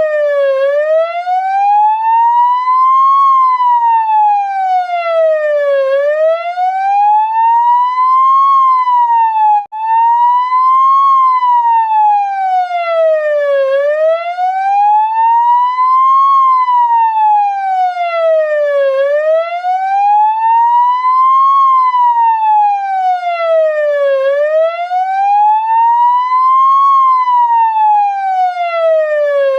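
Ambulance siren in a slow wail, its pitch rising and falling steadily about every five seconds. It cuts out for an instant about ten seconds in, then carries on.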